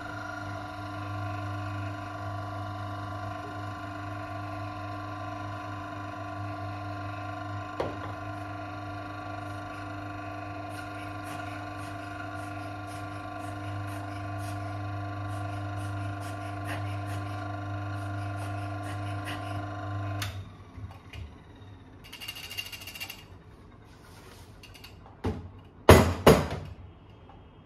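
Electric espresso grinder running steadily with a humming motor as it grinds coffee into a portafilter, cutting off about twenty seconds in. A few light clicks and a short rustle follow, then two or three loud knocks as the portafilter is handled on the counter.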